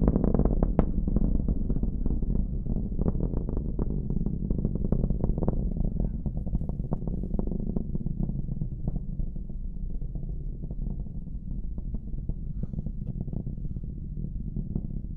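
Distant rumble of a Falcon 9 rocket's nine Merlin first-stage engines in ascent, low and full of sharp crackles, slowly fading.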